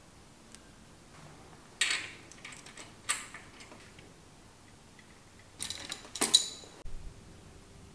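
Metal clinks and rattles of a folding hex-key multi-tool and brake hardware as a brake pad is bolted onto a rim brake arm, in two bursts of handling, followed by a dull knock near the end.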